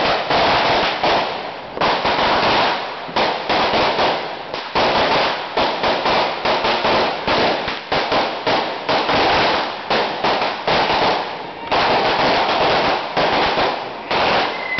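Firecrackers going off on the ground in long volleys of dense, rapid crackling, with a few short breaks between volleys.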